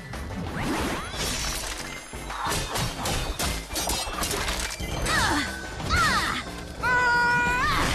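Cartoon fight sound effects over a music score: a run of sharp hits and crashes as thrown blade-weapons strike a shield and the ground. A few gliding pitched sounds come about five to six seconds in, and a held pitched tone near the end.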